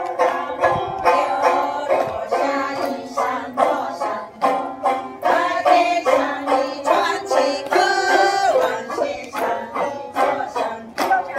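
Small plucked string lutes playing a lively folk dance tune, with a steady beat of about two sharp strokes a second.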